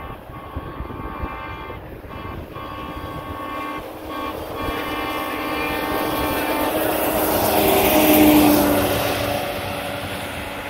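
Railroad track maintenance vehicles running along the rails. A steady pitched whine breaks off briefly about two and four seconds in. Then a louder rushing sound builds as a vehicle passes close, peaks around eight seconds in and fades.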